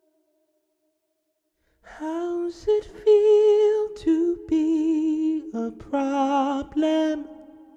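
After about two seconds of silence, wordless singing begins: long held notes with vibrato over a steady lower held note, dying away near the end.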